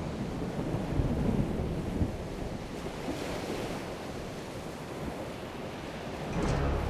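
Stormy sea: waves breaking and surging with wind, and a couple of heavier wave thumps about one and two seconds in.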